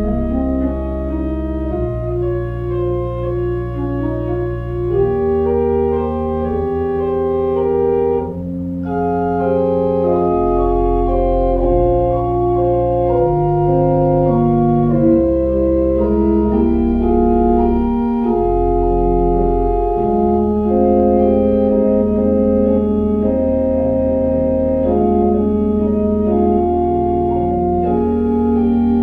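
Church organ playing slow held chords over deep sustained bass notes, the chords changing every second or two, with a brief break about a third of the way through.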